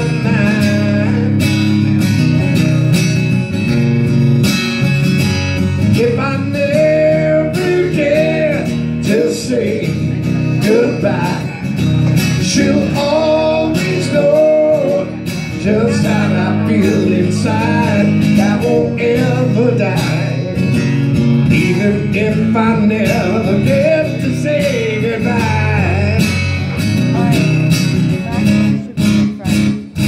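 A man singing while strumming an acoustic guitar, played live as a solo performance.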